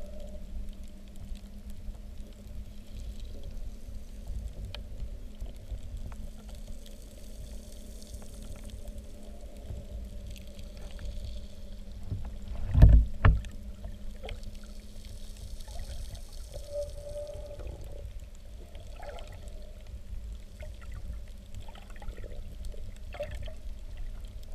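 Underwater ambience: a steady low rumble with a constant low drone, scattered sharp clicks, and two loud low thumps in quick succession about halfway through.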